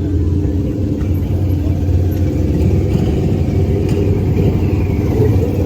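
Motorcycle engine running steadily, with a loud, fast-pulsing low rumble.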